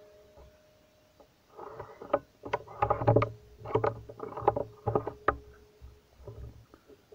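Rustling and knocking from a scoped rifle being handled close to the microphone, in about six short bursts, starting about a second and a half in and dying out near the end.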